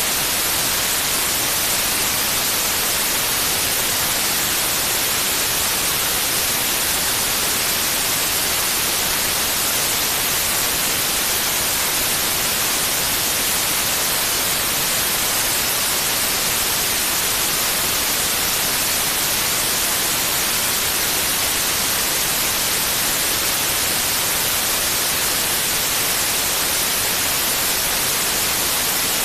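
Steady white noise: an even hiss, brightest in the high end, that does not change.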